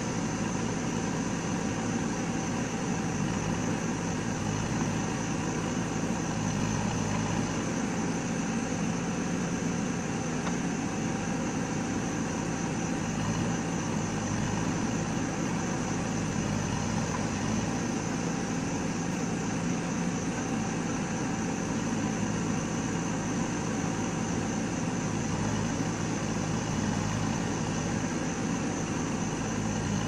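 JCB backhoe loader's diesel engine running steadily under load while the backhoe arm digs and piles mud.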